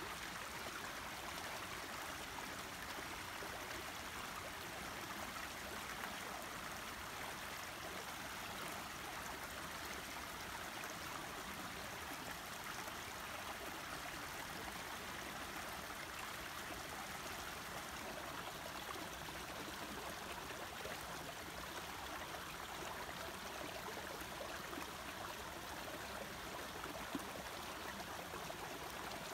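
Small stream flowing with a steady, even rush of water.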